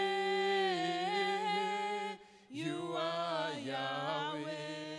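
Worship chorus sung into a microphone. A long held note breaks off about two seconds in, followed by a short pause, then the next phrase begins with a wavering pitch.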